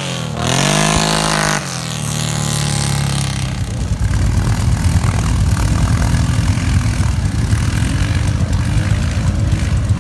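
ATV engine revving up and down in pitch during a wheelie, dropping off sharply about a second and a half in. A low, uneven engine rumble from ATVs running at low revs follows for the rest of the time.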